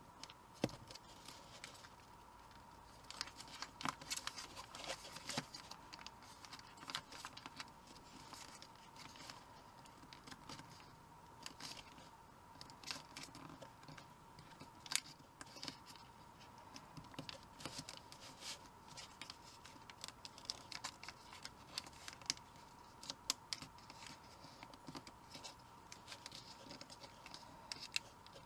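Origami paper being folded and creased by hand: faint crinkling and rustling, with scattered sharp clicks and taps as fingers press the creases flat.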